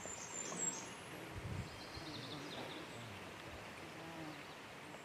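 Faint outdoor ambience with a short run of high, thin bird chirps in the first second.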